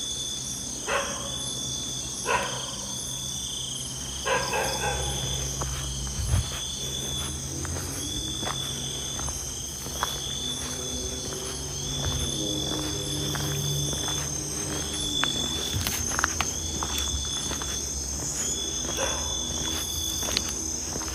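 Night insects chirping: a steady high-pitched trill with a lower chirp that pulses on and off. Scattered footsteps crunch on a dirt track.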